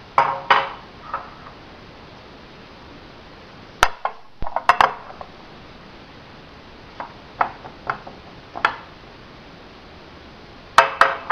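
Cups being knocked and tapped on top to turn out microwave-baked mini cakes: scattered clinks and knocks of crockery in small clusters, with pauses between.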